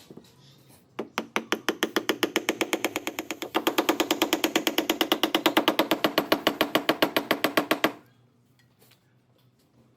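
Rapid, evenly spaced percussion strikes, a drum or wood-block roll, at about nine hits a second. It starts about a second in, grows louder partway through, and stops abruptly near the end.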